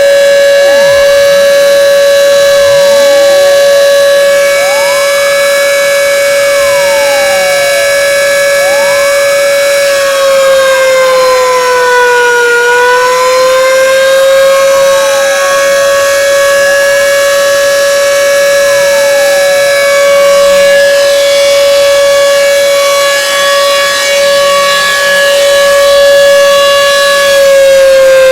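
Plengkung Gading's civil-defence siren sounding a loud, steady held tone to mark the moment of the Proclamation of Independence. Its pitch sags briefly about twelve seconds in and starts falling near the end as it winds down, with fainter tones sweeping up and down underneath.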